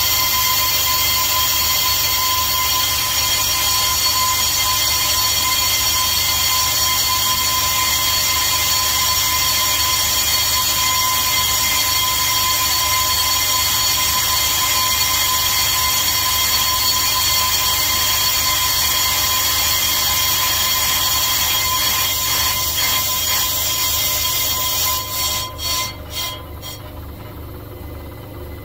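Brake-disc skimming lathe spinning a Zimmermann brake disc on its arbor: a steady high whine over a low hum. Near the end the sound drops away with a few clicks as the machine runs down.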